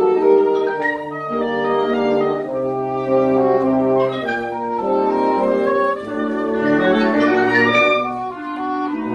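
Symphonic wind band playing, woodwinds and brass holding long, overlapping notes in a slow melody over sustained chords.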